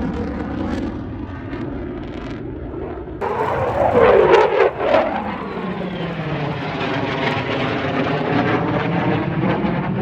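Fixed-wing aircraft flying past, its engine noise rising sharply about three seconds in and loudest around four to five seconds, with the pitch sweeping as it passes.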